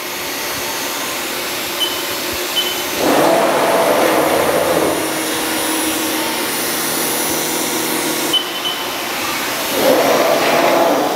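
Haas SR-100 CNC sheet router running through its axis moves: a steady rushing machine noise, with the axis drives whining louder twice, about three seconds in and near the end, as the router head travels.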